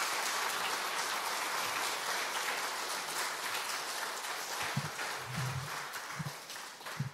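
A congregation applauding, the clapping slowly dying away and stopping just before the end.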